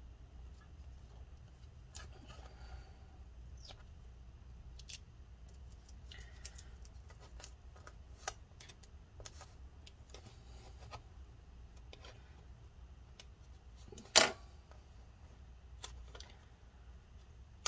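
Plastic scraper and fingertips scratching and rubbing at leftover battery adhesive on a MacBook Pro's aluminium case, with scattered light clicks over a steady low hum. One sharp knock about fourteen seconds in is the loudest sound.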